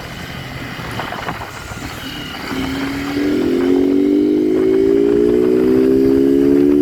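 Motorcycle engine accelerating: wind and road noise at first, then from about two and a half seconds in the engine note grows louder and climbs steadily in pitch as it pulls through one gear.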